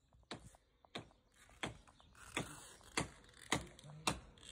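A steady run of sharp knocks, a little under two a second, getting louder.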